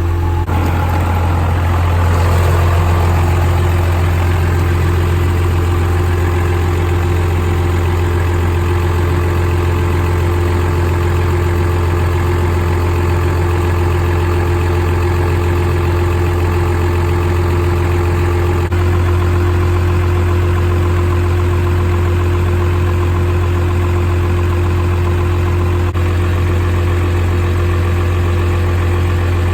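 12-valve Cummins 5.9 L inline-six turbo diesel idling steadily through a 5-inch straight-pipe exhaust, with a deep, even drone. There is a slight change in tone about two-thirds of the way through.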